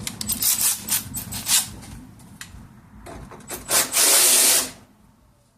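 Hand-tool work on a plastic coolant reservoir's mounting: irregular scraping and rubbing of plastic and metal with short sharp strokes. A loud rasping burst just under a second long comes about four seconds in.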